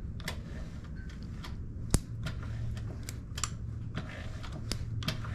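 Irregular sharp snapping clicks, the loudest about two seconds in, from a spark jumping the gap of a grounded spark plug as the crankshaft is turned over by hand with a wrench. The snapping is the sign that the ignition is sparking on this plug.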